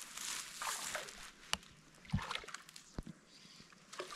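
Water splashing and sloshing at a river's edge, followed by three sharp clicks or knocks spread through the next couple of seconds.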